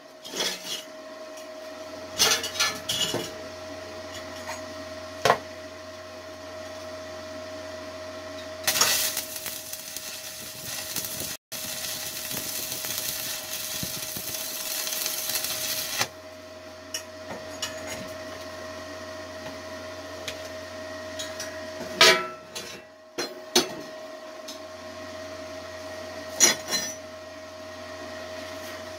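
Stick-welding arc from a 6013 rod on 1/8-inch steel plate, crackling and sizzling steadily for about seven seconds in the middle. Sharp metallic clanks and knocks of the steel plates being handled come before it and again near the end, over a steady hum.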